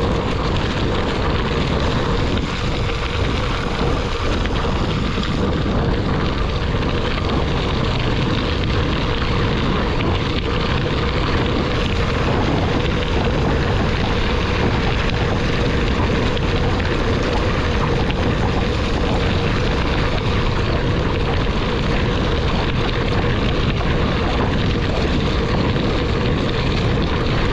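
Steady travel noise of riding along a road, mostly rushing noise with one constant humming tone held at the same pitch.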